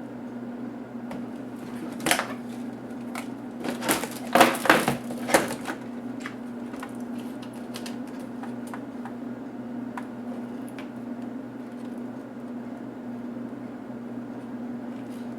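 Small clicks and knocks from handling HP DV4 laptop parts and tools during disassembly: a sharp click about two seconds in, then a run of louder clicks and rattles around four to five seconds in, over a steady low hum.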